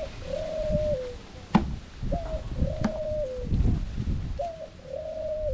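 A dove cooing, three times: each call is a short higher note followed by a longer steady lower note that drops off at its end, repeating about every two seconds. A single sharp click about a second and a half in.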